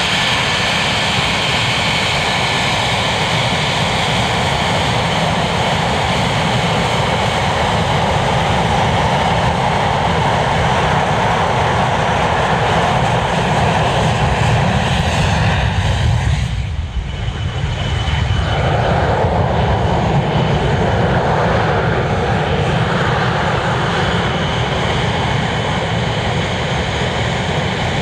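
English Electric Lightning F6's twin Rolls-Royce Avon turbojets running at taxi power: a loud, steady jet noise with a high whine. The sound dips briefly a little past the middle and then carries on with a slightly different character.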